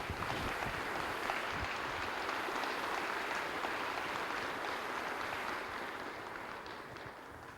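Audience applauding a guest being introduced, starting abruptly and slowly dying away near the end.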